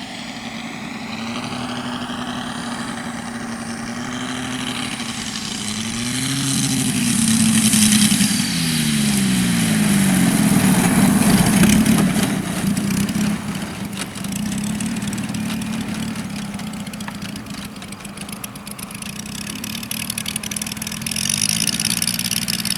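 Radio-controlled model airplane engine running, its pitch rising and then sliding down about six to nine seconds in before settling steady again.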